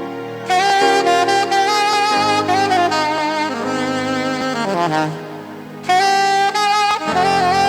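Instrumental music: a wind-instrument lead plays held notes and quick falling runs over a bass line. It dips quieter around the middle, then comes back with a long held note.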